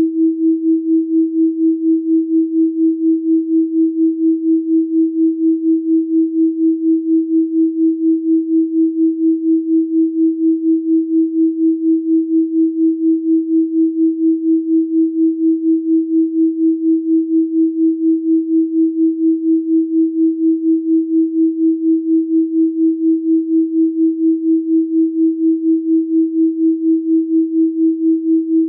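Steady synthesized pure sine tone at 324 Hz, its loudness pulsing evenly about three to four times a second.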